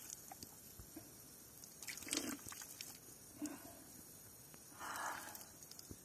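A few short, faint slurps of water drunk from a cupped hand at a pipe tap, the longest near the end, with the tap's water trickling softly and a few small clicks.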